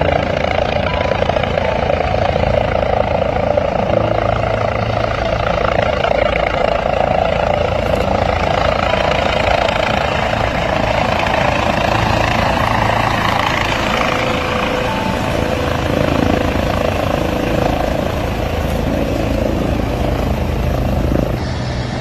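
Air-ambulance helicopter's rotor and turbine running loud and steady. The noise eases slightly just before the end.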